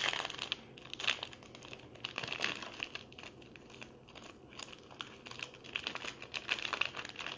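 Foil wrapper of a trading-card pack crinkling as hands work it and peel it open, in a run of irregular small crackles.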